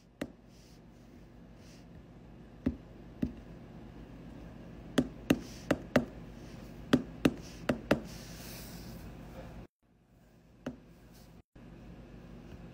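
Sharp taps on an iPhone's touchscreen number keypad as a passcode is entered. The taps come in two quick runs of four, about a second apart, with a few single taps before and after.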